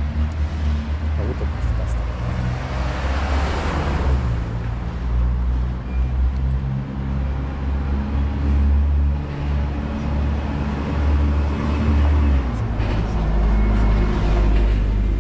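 Street traffic: a motor vehicle's engine running close by, its low hum shifting pitch a few times. A louder rush of vehicle noise comes about three to four seconds in.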